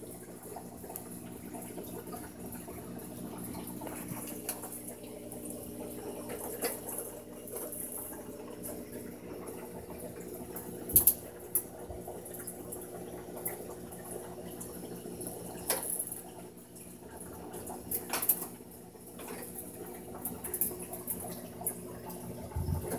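Water trickling with a steady low mechanical hum under it, and a few sharp clicks or taps scattered through.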